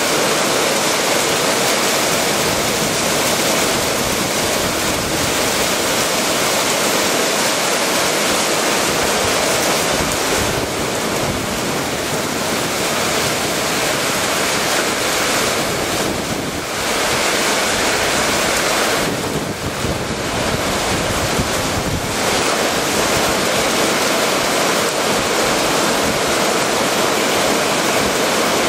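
Torrential rain pouring down: a loud, steady hiss of heavy downpour.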